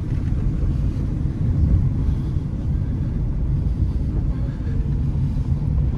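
Steady low rumble of a small car driving, its engine and road noise heard from inside the cabin.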